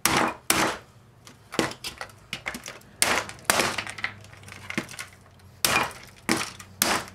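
Electric hand mixer's housing struck with a mallet, about eight hard, irregularly spaced blows with lighter knocks between, as it is beaten to break it apart.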